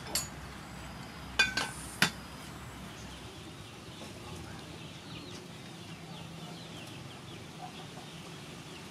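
A few sharp clinks of a metal spoon against cookware in the first two seconds, then a steady outdoor background with faint, repeated bird calls.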